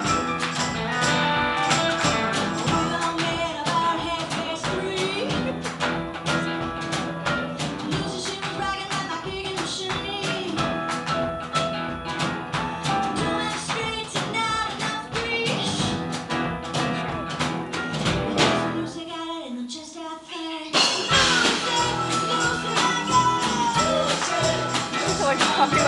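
Live band music with a steady beat; it nearly drops out for about two seconds and then comes back in louder.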